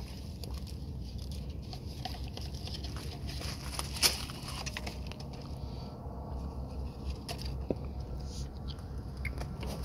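Light rustling and small clicks of a new paper oil-filter cartridge being handled and fitted into its canister housing, with one sharper click about four seconds in, over a steady low hum.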